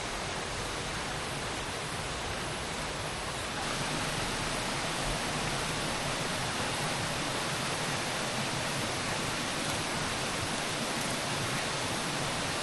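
Mountain stream water rushing over rocks in a steady wash, a little louder from about three and a half seconds in.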